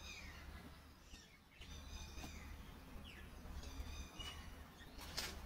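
A bird calling repeatedly: a short high call of several stacked notes about every two seconds, each followed by a quick falling note, over a steady low rumble. A sharp click near the end.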